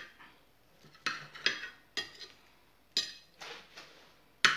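Table knife and fork cutting through an omelette and clinking and scraping against a ceramic plate: about half a dozen sharp, irregularly spaced clinks, several ringing briefly.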